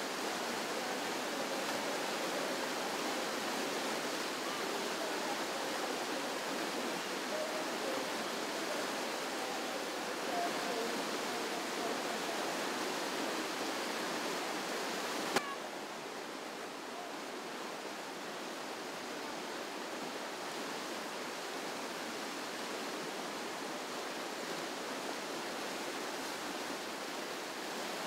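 Whitewater river rapids rushing steadily. About halfway through there is a sharp click, and after it the rush is slightly quieter and duller.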